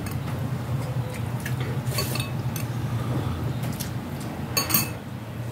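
Spoon and fork clinking against ceramic plates and glass bowls during a meal: a few scattered sharp clinks, the loudest pair near the end.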